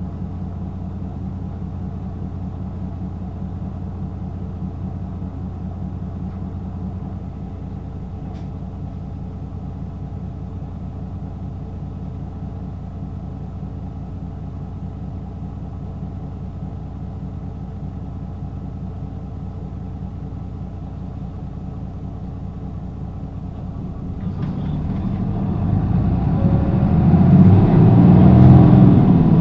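Interior sound of a Hino Blue Ribbon II city bus (LKG-KV234N3, six-speed manual) with its diesel engine idling steadily. About 24 seconds in, the engine revs up and grows louder as the bus pulls away in a low gear.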